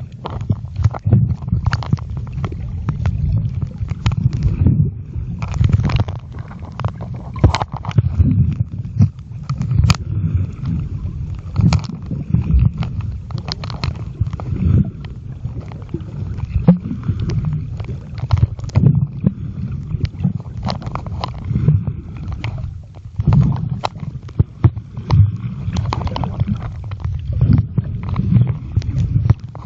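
Muffled underwater sound picked up by a mobile phone's microphone while it is submerged: a low, churning rumble of moving water, broken by frequent irregular clicks and knocks.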